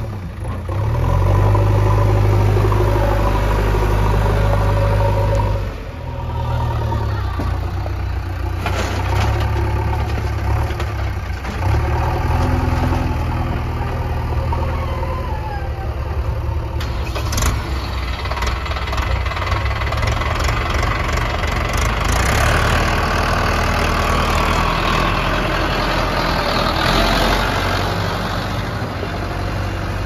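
Diesel engines of a JCB 3DX backhoe loader and a tractor running steadily, the engine note shifting about six seconds in. From about halfway there are scattered clanks and a rattling hiss.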